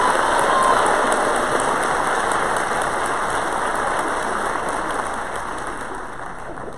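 Audience applauding, a dense steady clapping that slowly dies away near the end.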